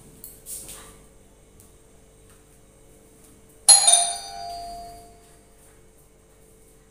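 A doorbell-style ding-dong chime rings once about three and a half seconds in: two quick bright tones that ring out and fade over about a second.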